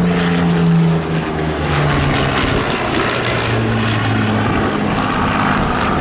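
Supermarine Spitfire's V12 piston engine running as the fighter flies past and banks overhead, its note sliding down in pitch in the first two seconds, then climbing again after the halfway point.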